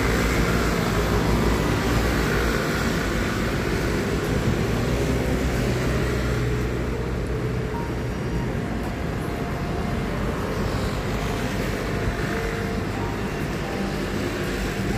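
Steady city road traffic noise from cars driving past on a busy street.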